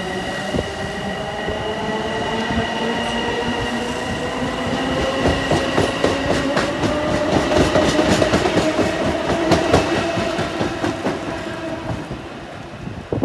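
LIRR M7 electric multiple-unit train running past close by: a steady electric whine with several tones that slowly shift in pitch, and wheels clicking over rail joints, loudest about two thirds of the way through, then fading near the end.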